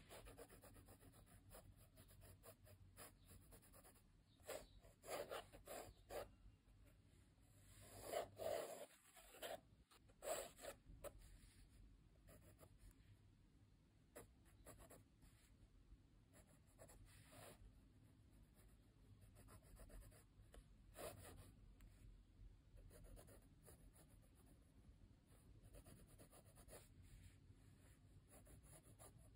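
Coloured pencil scratching on sketchbook paper in short, light strokes, faint throughout, with a louder flurry of strokes in the first third.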